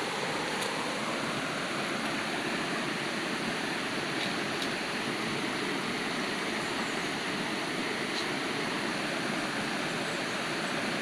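Shallow river water running over rocks: a steady rushing.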